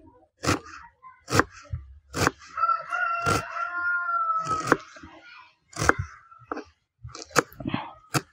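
Knife blade chopping a red onion on a wooden board, sharp knocks about once a second. A rooster crows once in the background, one long call about halfway through.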